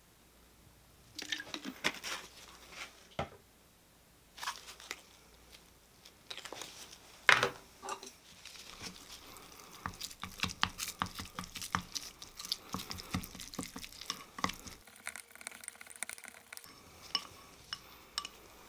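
Diced raw tuna and nori being stirred with soy sauce in a small ceramic bowl: a utensil clicking and knocking against the bowl with wet squishing, a few scattered knocks first, one sharp knock about seven seconds in, then a fast irregular run of clicks while mixing.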